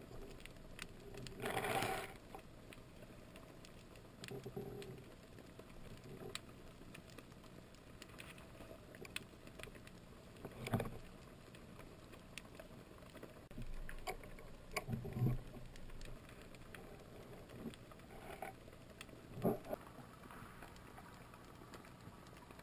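Underwater sound picked up by a camera in its housing: a low muffled wash of water with scattered faint clicks and a few short, duller bumps.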